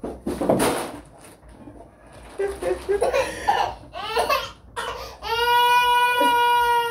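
A person crying, with broken sobbing sounds that end in one long, steady wail lasting about two seconds.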